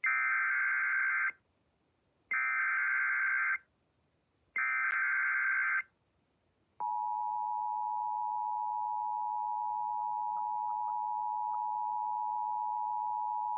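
Emergency Alert System alert tones: three identical bursts of SAME header data, each just over a second long with short gaps between them. About seven seconds in, the steady two-tone EAS attention signal starts and holds.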